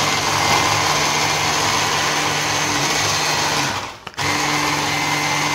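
Electric hand mixer running steadily, its beaters whisking pancake batter in a plastic jug. The motor cuts out briefly about four seconds in, then starts again.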